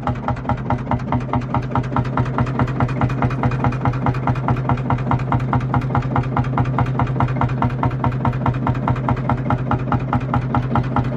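Series 2 Field Marshall tractor's single-cylinder two-stroke diesel running with a steady, rapid, even beat.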